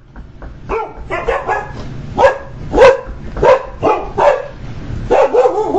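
Dog barking repeatedly, a run of about ten sharp barks roughly every half to three quarters of a second, the loudest about three seconds in.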